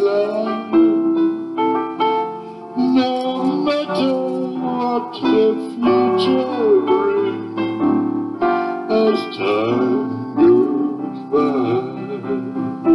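Music played on a keyboard with a piano sound: chords and a melody line carrying a tune.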